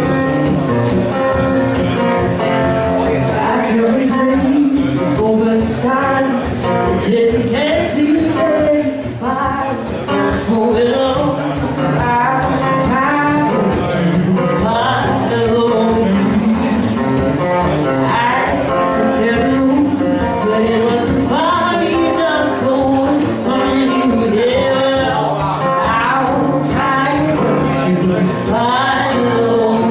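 A woman singing a slow song into a microphone, accompanied by a steadily played acoustic guitar.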